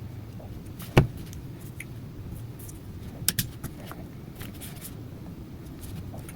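Handling noises from small hard camera accessories and their packaging: one sharp click about a second in, a pair of lighter clicks a little after three seconds, and faint scattered ticks over a low steady hum.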